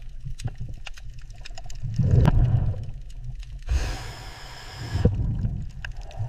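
Low, steady underwater rumble with scattered faint clicks, swelling about two seconds in, and a breathy hiss lasting about a second and a half near the middle.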